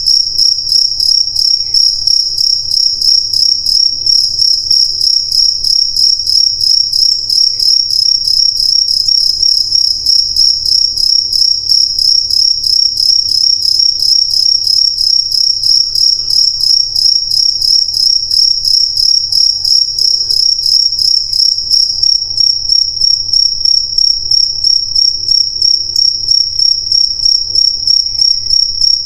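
Crickets chirping loudly and steadily, a high pulsing trill of about three chirps a second.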